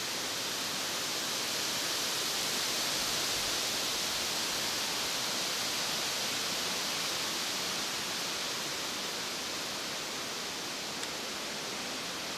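Steady hiss of wind through grass and leaves, swelling slightly a few seconds in and easing off, with no distinct sounds standing out.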